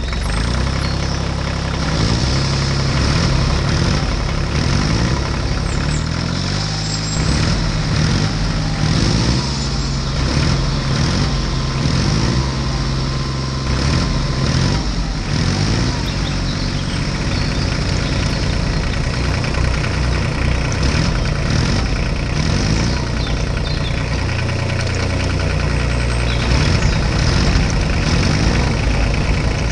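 Tractor engine running steadily with a low, even beat.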